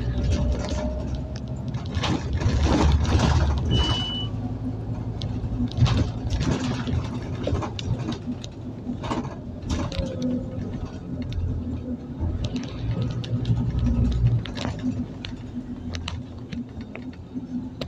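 Scania OmniCity city bus on the move, heard from inside the passenger cabin: the diesel engine's low rumble rising and easing with the driving, with interior panels and fittings rattling and clicking throughout. A short high beep sounds about four seconds in.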